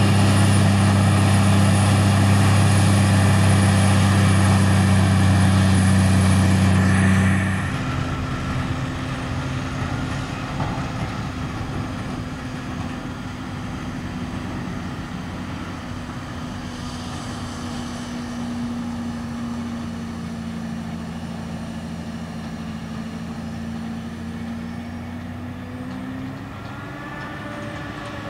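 John Deere 8800i forage harvester running steadily at full work while chopping rye, its engine and chopping gear making a loud, deep, even hum, with tractors pulling trailers alongside. About seven seconds in the sound drops suddenly to a quieter, more distant steady engine note, which rises slightly in pitch near the end.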